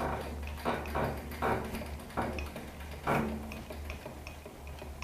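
Metal lathe carriage being cranked along the bed by its apron handwheel, the rack-and-pinion gearing giving a series of short metallic strokes about every half second, the loudest about three seconds in. A low steady hum runs underneath.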